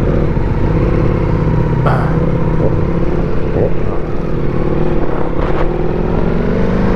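Motorcycle engine running while riding, its pitch climbing gradually over the last couple of seconds as it accelerates.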